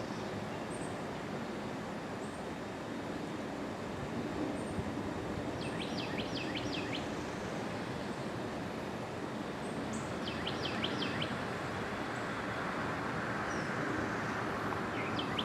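Steady distant jet-engine noise from a Boeing 787-9 Dreamliner, growing slightly louder toward the end. Over it a small bird twitters three times in short runs of quick high notes.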